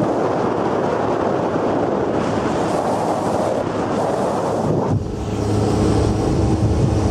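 Motorboat under way at speed: wind rushing over the microphone together with water noise from the hull. About five seconds in, the rush eases and the boat engine's steady drone comes through plainly.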